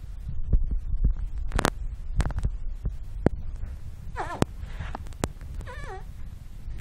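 A dog snoring in a low, throbbing rumble, with a few sharp clicks. Two short high whines falling in pitch come about four and six seconds in.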